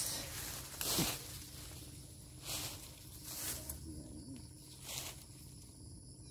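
Rustling and swishing of dry sugarcane leaves being brushed and pushed aside by hand, in a few separate sweeps spaced a second or so apart.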